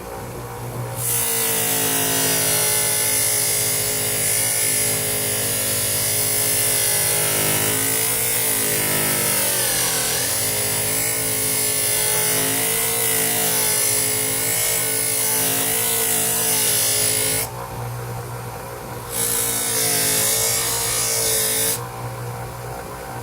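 Bench grinder running with a cotton buffing wheel, with a piece of aluminium pressed against the wheel and buffed with polishing compound, giving a loud steady rubbing over the motor's hum. Around the middle the motor's pitch dips briefly as it slows under the pressure. The rubbing stops twice near the end as the piece is lifted off, leaving the grinder's hum.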